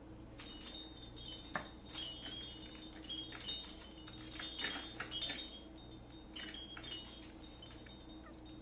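Light metallic jingling and tinkling, shaken in irregular bursts that start about half a second in and stop near the end.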